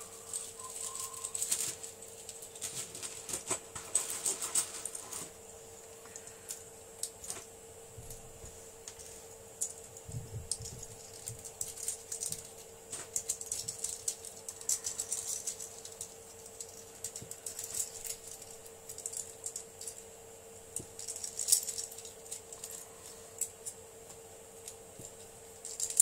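Irregular small clicks and crackles of a 3D-printed print-in-place octopus's plastic leg joints being worked up and down by hand, freeing joints that came off the print bed stuck. A faint steady hum runs underneath.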